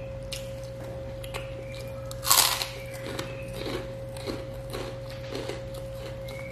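A person eating grilled chicken by hand, close to the microphone: one louder bite a little over two seconds in, then steady chewing, over a constant background hum.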